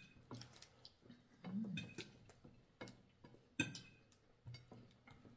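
Forks and spoons clinking now and then against plates as people eat, with one sharper clink about three and a half seconds in.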